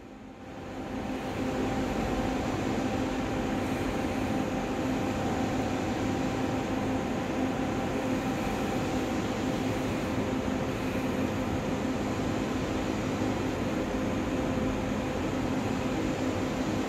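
Steady hum and hiss of a subway platform's ventilation and machinery, with a constant low tone. No train is moving.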